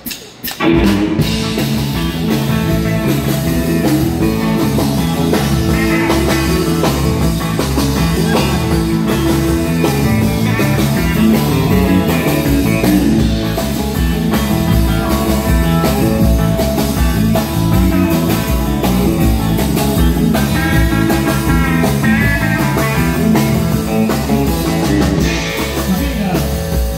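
Live rock band (drum kit, electric guitars and bass) starting up about half a second in and playing loudly with a steady beat.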